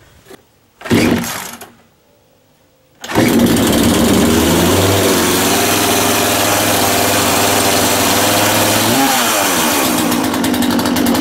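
Two-stroke Poulan Pro chainsaw engine being pull-started after eight years unused: a short burst about a second in, then about three seconds in it catches and keeps running steadily, with its pitch shifting briefly around nine seconds in.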